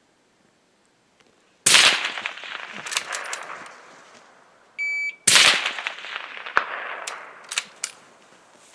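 Two rifle shots about three and a half seconds apart, each followed by a long echo that fades over a couple of seconds. A short beep comes just before the second shot, and a few sharp clicks are heard between and after the shots.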